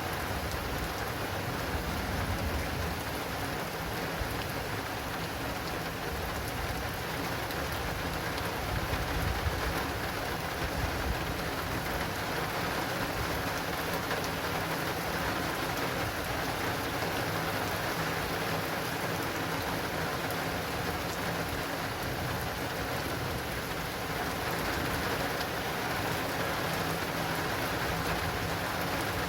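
Heavy rain pattering steadily on an acrylic awning, with a low rumble of distant thunder swelling about a third of the way in.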